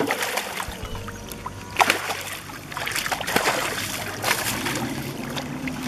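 Water splashing and sloshing as a large tambacu thrashes against a man holding it in waist-deep pond water. There are sharp splashes, the loudest about two seconds in, over a faint steady low hum.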